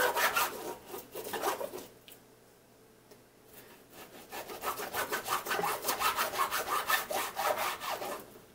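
Kitchen knife sawing back and forth through a raw salmon fillet on a plastic cutting board, in quick repeated strokes. Two bouts of cutting, with a pause of about two seconds between them.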